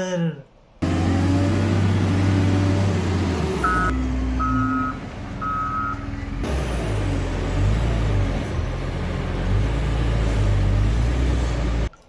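JCB wheel loader's diesel engine running under work, with a reversing alarm beeping three times about four seconds in.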